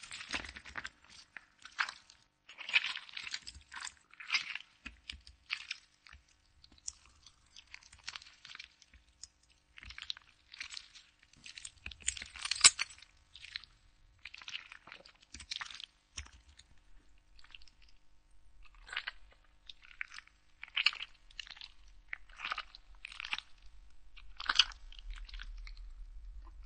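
A ripe red tomato being squeezed: wet squelching and crackling as the skin and flesh give way, coming in irregular clusters of short bursts. The loudest squelches fall about halfway through and again near the end.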